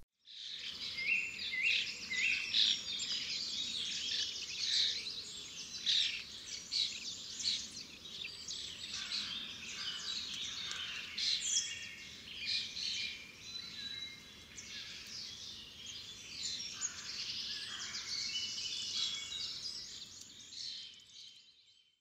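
A chorus of several songbirds singing and chirping at once, a dense run of short high notes and trills over faint low background noise, fading out near the end.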